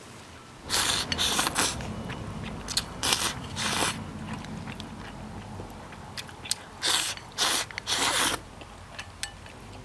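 A person biting into and chewing a big piece of soft braised pork knuckle, in short noisy bursts of eating sounds: three clusters with pauses between.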